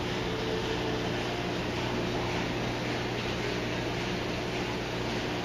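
Steady low electrical hum under an even hiss, such as running pumps or ventilation.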